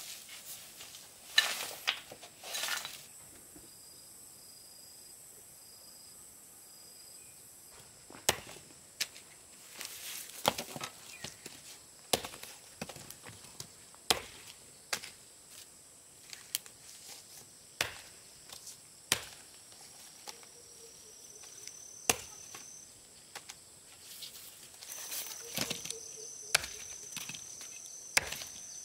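Wood being worked by hand: scattered sharp knocks and taps, at times about one a second, with short stretches of scraping and rustling in between.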